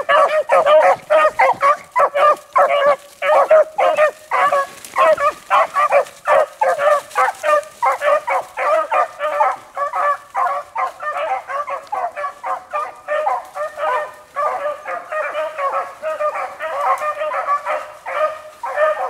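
A pack of beagles baying while running a rabbit's scent trail: a rapid, unbroken chorus of short overlapping bays from several hounds, each bay only a fraction of a second.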